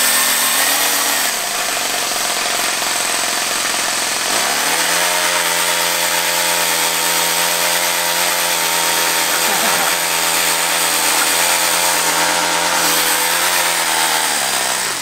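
Toyan four-stroke RC model engine running loud and rough on a dart blaster. It revs up, drops back about a second in, then revs up again about four and a half seconds in and holds high while the engine-spun flywheels fire a rapid stream of foam darts, falling away at the very end.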